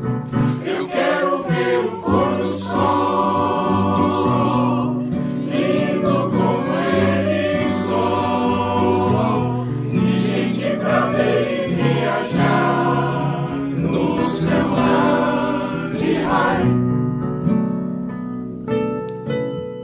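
A mixed choir sings in harmony with instrumental accompaniment. About three-quarters of the way through, the singing thins out, leaving a few short instrumental notes.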